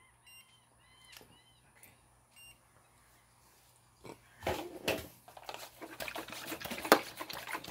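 A few faint electronic beeps from an infrared thermometer in the first second. After about four and a half seconds comes handling clatter, then the hiss and clicks of a hand-pump pressure sprayer being pumped and misting water over the eggs, louder near the end.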